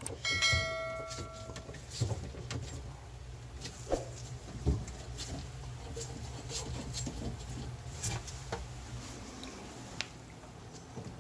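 Scattered knocks and clicks of handling inside a kitchen sink cabinet while the water supply stop valves are being shut off. Shortly after the start, a ringing tone lasts about a second and a half.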